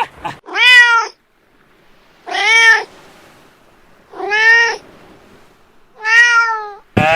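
Domestic cat meowing four times, one short meow about every two seconds, each rising and then falling in pitch.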